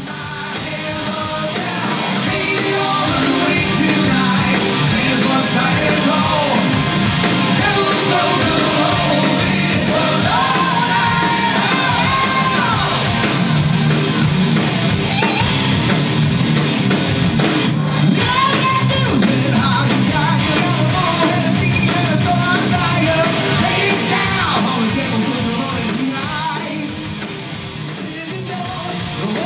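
Live hard rock band playing loud: electric guitars through amplifiers, bass and drums, with a voice singing and yelling over them. The sound fades up over the first few seconds and dips a little near the end.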